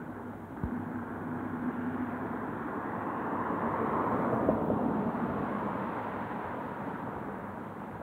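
A vehicle passing: its noise swells to a peak about halfway through and fades again, over a steady background of traffic. There is a short knock about half a second in.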